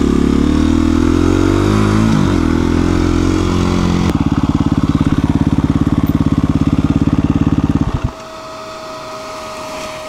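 KTM 350 EXC-F single-cylinder four-stroke dirt bike engine running under the rider, its pitch rising and falling as it pulls the last of a climb. About four seconds in it settles to an even pulsing idle with the bike stopped, and near eight seconds the engine is switched off, leaving only a faint steady whine and breeze.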